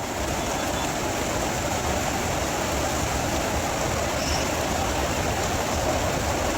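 Steady rush of water: floodwater flowing or heavy rain, an even hiss that holds at one level throughout.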